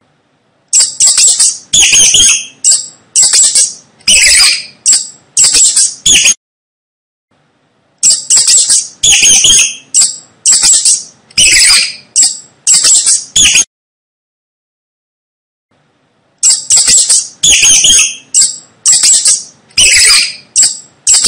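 Mice squeaking: sharp high-pitched squeaks about two a second, in three bursts of several seconds each with short pauses between.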